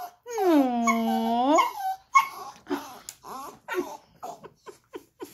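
A small dog 'talking': one long, drawn-out whine that dips and then rises in pitch, followed by a string of short whimpers and yips.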